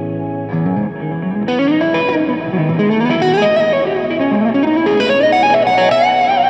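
Electric guitar played through an amplifier with effects: a held chord, then about half a second in a flowing improvised lead line with notes sliding and bending up and down, climbing to a held high note near the end.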